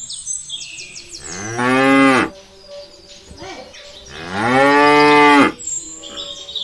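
A cow mooing twice: two long, drawn-out moos that rise and then fall in pitch, the second one longer.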